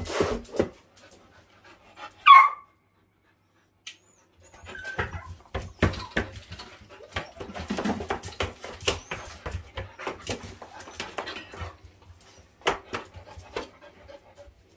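Poodle giving one high whine about two seconds in, then panting, with its claws clicking and scrabbling as it jumps up at a man's legs: an anxious dog clinging to the one person it has attached to.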